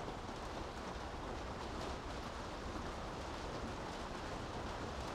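Steady rain falling on city streets: an even hiss of rain with a constant low rumble underneath.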